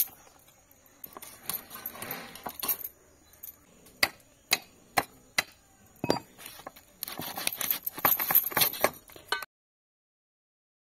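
Heavy iron cleaver chopping through a raw fish on a wooden board: a run of sharp knocks about half a second apart, then a busier stretch of scraping and handling. The sound cuts out about a second and a half before the end.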